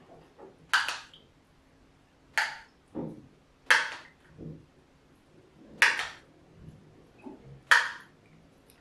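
Metal spoon clinking against a small metal pot, five sharp clinks about every two seconds, as syrup is scooped out, with a few softer knocks in between.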